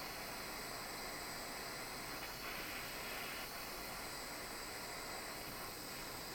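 Soldering torch flame hissing steadily while heating the ring's solder seam.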